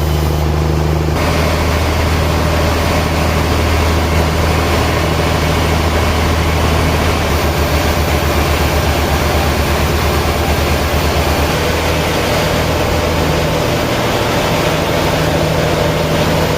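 Sawmill machinery running: a steady, loud, low engine drone, joined about a second in by a broad noisy rush that lasts to the end.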